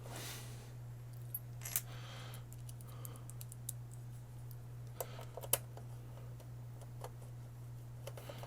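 Scattered small metallic clicks and taps of screws and a screwdriver against an Xbox One S console's chassis as it is screwed back together, over a steady low hum.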